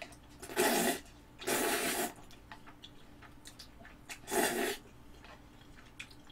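Three short slurps as cup noodles in cheese sauce are sucked in from a paper cup, with faint small clicks between them.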